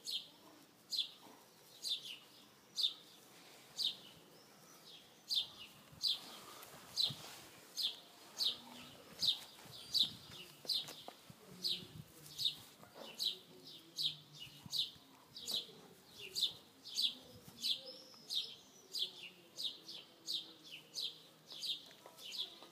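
A bird chirping over and over, a short high note that falls in pitch, repeated evenly about one and a half times a second.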